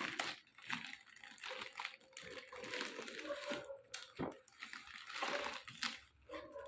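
Cardboard parcel being cut open with scissors and handled: irregular rustling and scraping of the packaging with a few sharp clicks.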